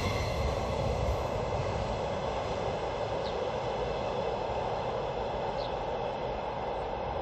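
Rumble of a freight train that has just passed, as a steady noise that slowly fades as it recedes. Two faint, short high chirps come about three and five and a half seconds in.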